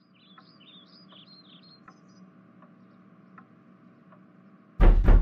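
Faint background ambience of birds chirping for the first couple of seconds, with soft ticks about every three-quarters of a second over a low hum. Near the end a sudden loud burst of sound cuts in.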